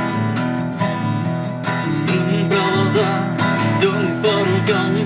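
Acoustic guitar strumming a steady rhythm, with a wavering melody line coming in about two seconds in.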